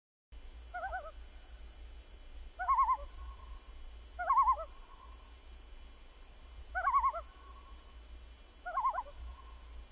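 A bird call with a quick wavering pitch, repeated five times about two seconds apart, over a steady low hum.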